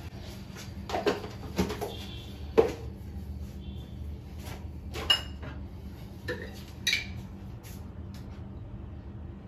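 Kitchen utensils clinking: a spoon and spice containers knocking against each other and the dishes, about six sharp clinks spread over several seconds, over a low steady hum.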